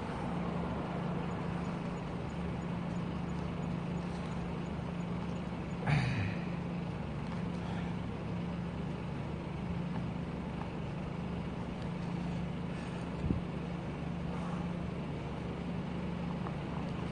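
Steady low hum of a running engine or machine over an even wash of background noise, with a short louder sound about six seconds in and a brief click about thirteen seconds in.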